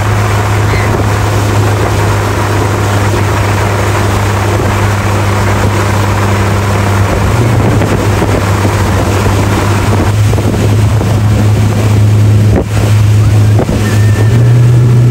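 Motorboat engine running at speed with a steady low drone, mixed with wind on the microphone and rushing water from the wake. The engine note rises a little near the end.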